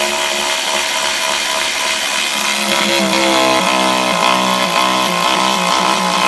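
A 12V cordless electric ratchet wrench running continuously as it drives a large bolt into wood. Its motor whine starts steady, then from about halfway the pitch keeps dipping and wavering as the load grows with the bolt seating deeper.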